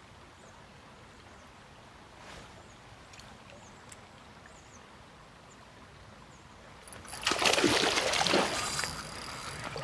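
A hooked fish thrashing and splashing at the water's surface for about two seconds, starting some seven seconds in, then dying down. Before it there is only the faint flow of the canal.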